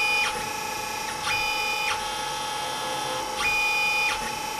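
Dyna Mechtronics DM 4400 CNC mill running through its drilling cycle: a steady machine hum with several held tones, broken three times by a short whine of about half a second as the axis drives move the table.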